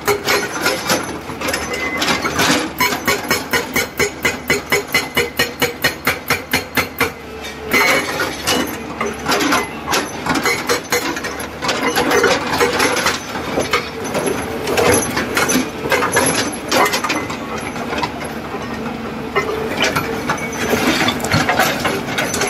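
SHS-81 hydraulic rock breaker on an EX200 excavator hammering rock: a fast, even rattle of blows for the first seven seconds or so, then less regular blows, with the excavator's engine running underneath.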